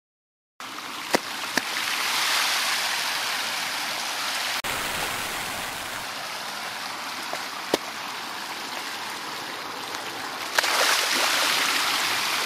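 Shallow stream running steadily over a gravel bed, with a few sharp clicks. The rush of water grows louder about ten seconds in.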